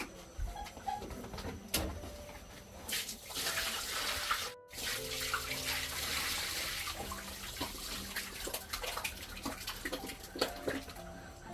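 Water running and splashing, with scattered clicks and knocks, loudest in the middle of the stretch.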